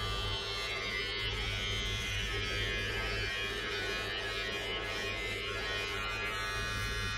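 Braun BT5265 beard trimmer running steadily as it is worked through the hair on a man's head.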